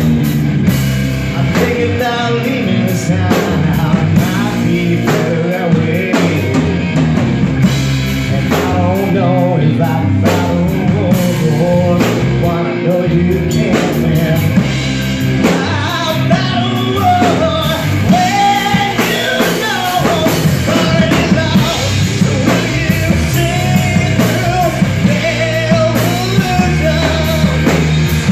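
Loud live rock band playing: distorted electric guitars, bass guitar and a drum kit, with a lead singer singing.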